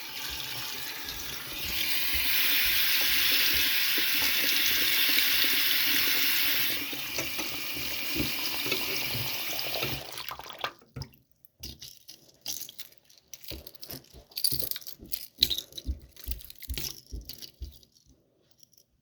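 Tap water running into a sink as an old fishing lure is rinsed under it. The flow is heavier for a few seconds, then shuts off about ten seconds in. After that come scattered small clicks and knocks of handling.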